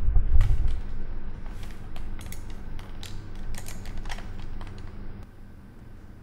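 Irregular clicking of typing on a computer keyboard and clicking a mouse. The clicking stops about five seconds in.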